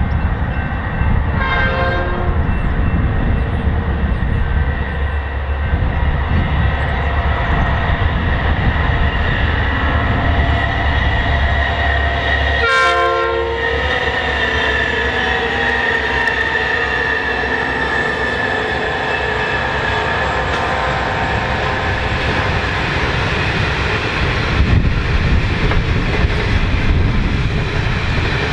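Diesel freight locomotives running with a steady low engine rumble as the train approaches, the lead locomotive's horn sounding a short chord about two seconds in and a louder one about halfway through. A high whine slowly falls in pitch after the second horn.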